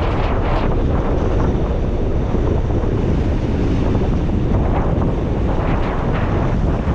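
Strong sea wind buffeting the microphone in a steady low rumble, with waves washing against the rocks underneath.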